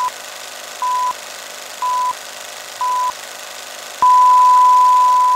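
Old-film countdown leader beeps: a short high beep once a second over a steady film hiss, then one long unbroken beep of the same pitch starting about four seconds in.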